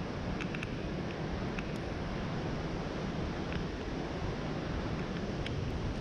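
Steady rushing of falling water from a waterfall, an even roar with no breaks, with a few faint short high clicks over it.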